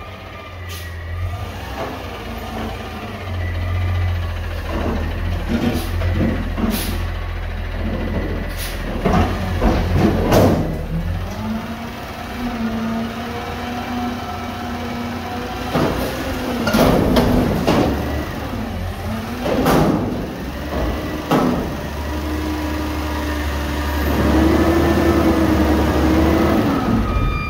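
Garbage truck's engine running and revving, its pitch climbing a few times, with several sudden loud noises from the truck in between.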